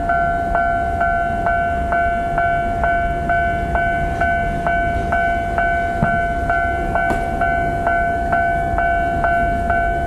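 Japanese railway level crossing's electronic warning bell ringing steadily at about two strikes a second over a held tone, with a steady low rumble beneath. It signals that the crossing is closed for an approaching train.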